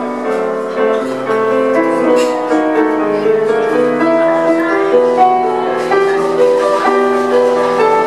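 A live band plays an instrumental passage, with piano among the instruments, moving through held notes and chords without singing.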